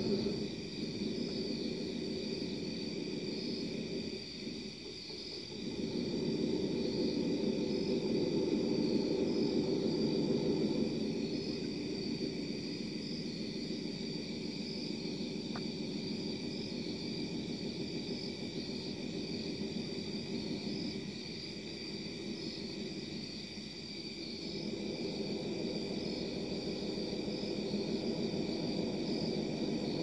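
Low, drawn-out droning hum of the kind passed around as unexplained 'strange sounds' heard in the sky: several steady low tones that swell for a few seconds, fade, and swell again, with a thin steady high whine running above them.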